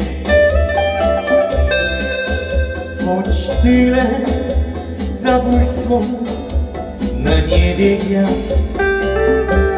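A small live band playing a song: electric guitar and a male singing voice over a steady beat.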